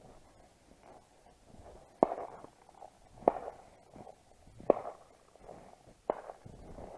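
Four distant shotgun shots, about a second and a half apart, each with a short echoing tail.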